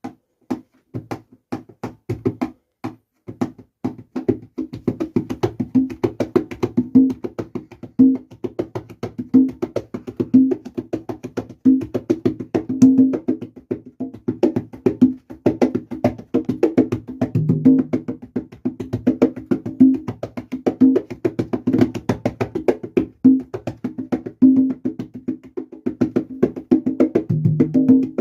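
Congas played in a salsa romántica rhythm: a few scattered strikes at first, then a steady groove of open tones and slaps from about four seconds in.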